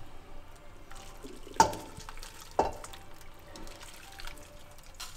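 Freshly boiled chilli sauce being poured from a small saucepan over cracked mud crab pieces in a stainless steel pot, with two sharp metal clinks, about one and a half and two and a half seconds in.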